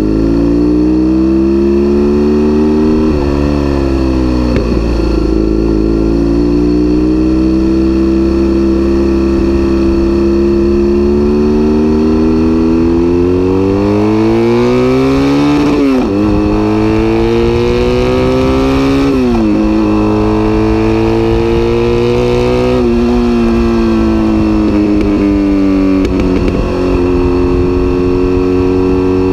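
BMW R1200S flat-twin engine through an SC-Project aftermarket exhaust, running loud under way: the pitch climbs slowly and drops sharply several times at gear changes, then holds steady at cruising speed near the end.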